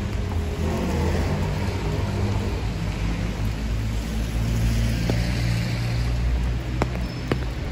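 A motor vehicle running by on the rain-wet street, a low engine rumble under tyres hissing on the wet road, the hiss swelling midway. Steady rain runs underneath.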